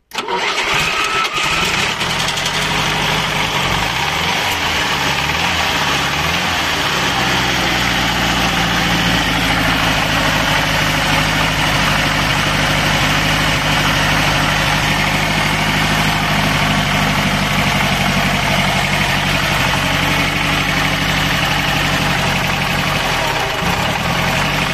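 Old V4 car engine firing up on its first start after standing unused a long time, its revs rising and falling unevenly for the first few seconds before it settles into a steady idle, with a brief rise and fall in revs again near the end.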